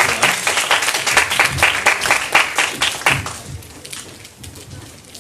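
Audience applauding, dense clapping that thins out and dies away about three seconds in, leaving a few scattered claps.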